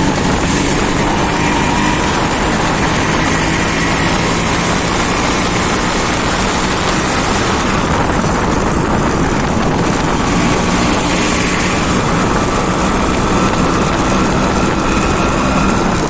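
Yamaha RX-Z two-stroke single-cylinder engine with a stock 5-speed CET silencer, running under way as the bike is sped up, mixed with heavy wind rush on the microphone and highway traffic noise.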